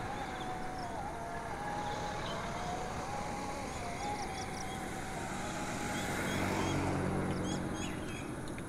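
Roadside traffic ambience: a faint, gently wavering engine whine, then a vehicle passing that is loudest about six to eight seconds in, with faint bird chirps.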